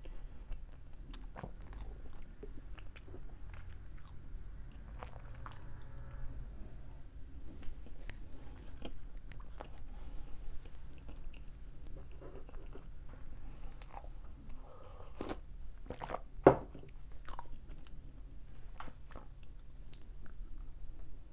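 A person chewing and biting into snack food close to the microphone, with many small crunches and clicks. A single sharp knock about sixteen seconds in is the loudest sound.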